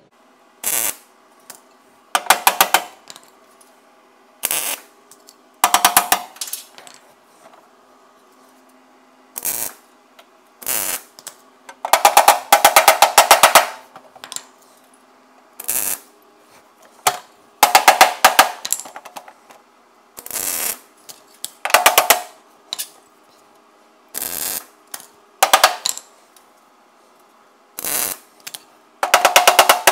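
MIG welder laying a series of tack welds on steel: short bursts of rapid crackling, each from a fraction of a second to about two seconds, about fifteen in all with short pauses between. A faint steady hum runs underneath.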